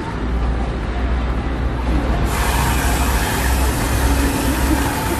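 Whipped cream dispenser hissing as it sprays cream into a crepe cone, starting about two seconds in, over a steady low rumble of street traffic.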